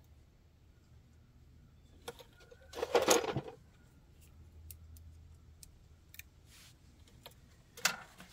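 Metal clutch parts, the clutch fork and throwout bearing on a tractor clutch shaft, clinking and rattling as they are worked into place by hand. A burst of rattling about three seconds in is the loudest part, with a few single clicks later.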